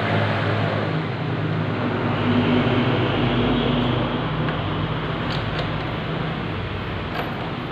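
A motor vehicle engine running steadily, swelling about two to four seconds in and then easing. A few faint metallic clicks come near the end.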